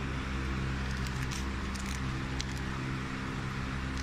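Steady hum of a powder sachet packing machine running, with a few faint clicks over it.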